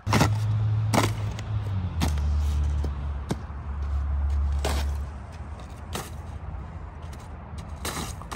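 Snow-covered ice cracking and crunching as it breaks under a person's shoes: about seven sharp cracks, one every second or so. Under the first five seconds runs a steady low hum that drops lower about two seconds in.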